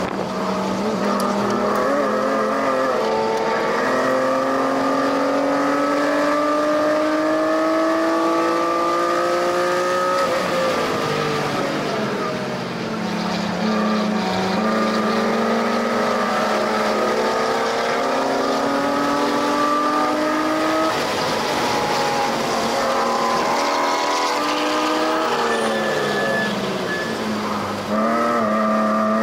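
2005 BMW E46 M3's S54 straight-six, fitted with aftermarket cams, headers and a Magnaflow rear section, running hard on track. Its pitch climbs steadily for about ten seconds, then falls away. It holds and rises slowly, then rises and falls several times in the last few seconds.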